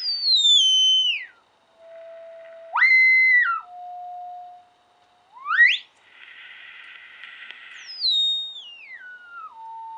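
Whistling tones from an R-390A tube communications receiver's speaker as it is tuned across the low-frequency band. The tones fall in steps, settle into a steady low note that jumps up and drops back about three seconds in, then give way to a stretch of hiss. A second falling whistle near the end settles into a steady tone.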